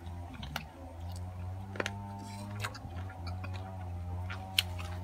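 Scattered light clicks and taps of eating from a metal bowl, with a sharp click near the end as the metal spoon in the bowl is handled, over a steady low hum.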